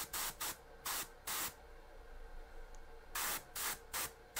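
Airbrush spraying primer in short bursts: about four quick sprays in the first second and a half, then three more a little before the end, as the light is built up on one side of a miniature.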